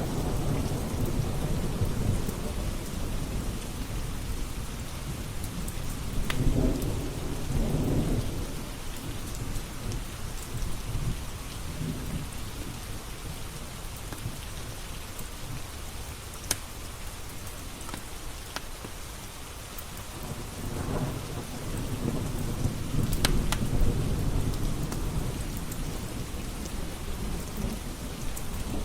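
Steady rain with low rolling thunder that swells twice, and a few sharp pops from a crackling fireplace fire.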